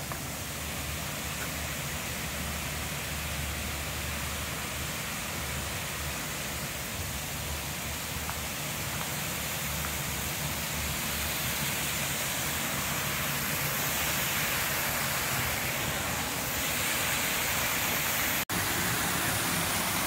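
Blue Hen Falls, a small woodland waterfall: a steady rush of falling water that grows gradually louder, with a momentary break near the end.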